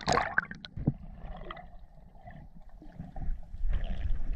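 Water splashing at the surface as a diver's fin breaks through it in the first second, then the muffled gurgling and rumble of water heard underwater as the freediver swims.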